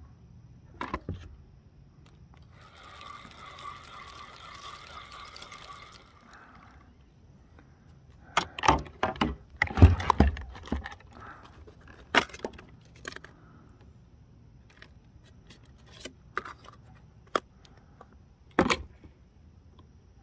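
Clicks, knocks and scrapes of plastic fishing gear being handled in a plastic kayak: hands rummaging in the bait bucket and the worm tub, with the loudest knocks about halfway through and a few more near the end. A steady high-pitched tone sounds from about three to six seconds in.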